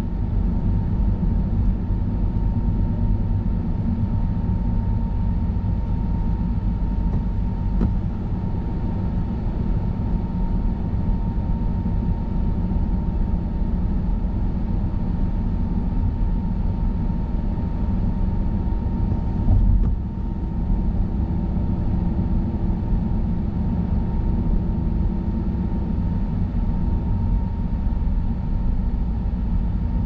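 Car driving along a highway: steady low rumble of tyres on the road, with a faint steady whine. About twenty seconds in, one louder low thump, as of the tyres crossing a bump or joint.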